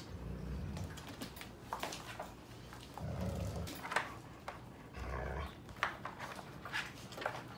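Sheepadoodle puppies growling and yelping as they jostle to nurse under their standing mother: three low rumbling growls, near the start, about three seconds in and about five seconds in, with short high yelps and scuffling between them.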